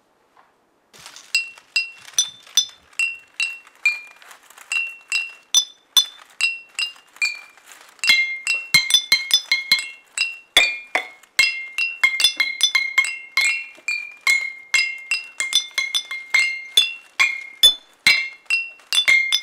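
A row of six glass bottles holding different amounts of water, struck one after another so each rings out its own clear note, tapped out as a tune. The strikes start about a second in, sparse at first, then come quicker and denser from about halfway through.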